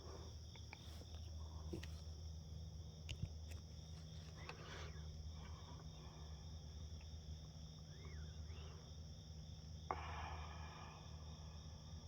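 Crickets trilling steadily over a low, steady hum. A short rising-and-falling call sounds about eight seconds in, and a sharp tap about ten seconds in is followed by a brief rustle.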